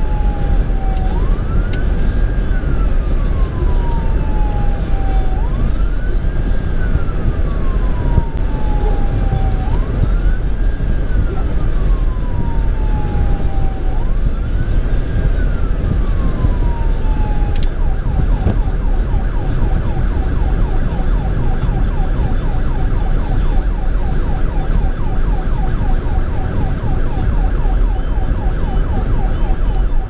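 A paramedic command vehicle's electronic siren, heard from inside the cab over steady road and engine rumble. It goes in a slow wail, about one rise and fall every four seconds, then switches to a fast yelp a little past halfway.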